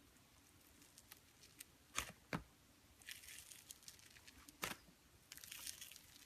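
Slime being handled by hand, giving faint sticky crackling with a few sharp pops, about two seconds in and again near the middle.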